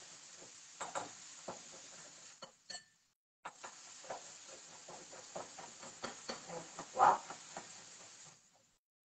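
Zucchini being grated by hand on a metal grater over a bowl: irregular scraping strokes over a steady hiss, with one louder knock late on. The sound drops out briefly about three seconds in and cuts off shortly before the end.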